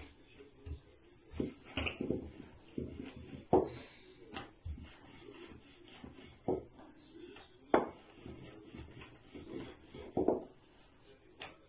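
Wooden rolling pin rolling out dough on a floured countertop: a soft rubbing, rolling sound broken by irregular sharp knocks of wood on the counter. The dough is being rolled thin for khinkali wrappers.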